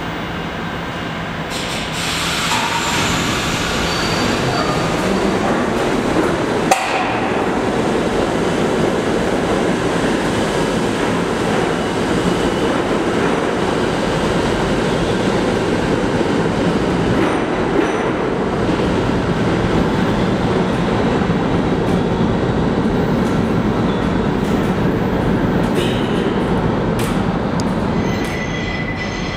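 New York City subway trains running through an underground station: a steady rumble of wheels and motors on the track. A single sharp clack comes a few seconds in, and a thin, high wheel squeal near the end.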